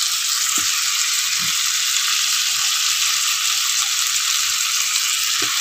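Steady sizzling of hot oil in a pot of frying spices and kepayang leaves as pieces of fermented mengelan fish (pekasam) are laid in.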